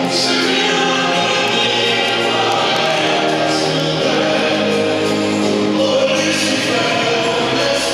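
Choral music with voices holding long sung notes, played for a synchronized swimming routine.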